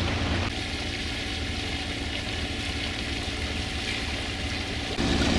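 A sailboat's inboard engine running steadily under way, a low even drone with a low hum. The sound shifts slightly about half a second in and again near the end.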